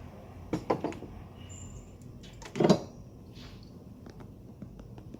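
Handling knocks and clicks from ignition coils and multimeter probes being moved about during coil testing: a few light knocks about half a second in, one louder clunk near the middle, then small faint ticks.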